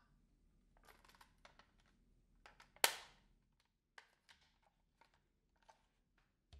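Hard plastic parts of a Dyson Hair screw tool being handled, with light clicks and rattles. One sharp, loud click comes about three seconds in as the neck assembly snaps into place, followed by a few lighter ticks.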